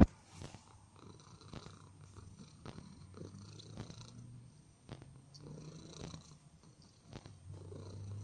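Grey-and-white long-haired cat purring steadily while being stroked, the purr swelling and easing in a slow rhythm. A sharp knock comes right at the start, and light clicks occur here and there.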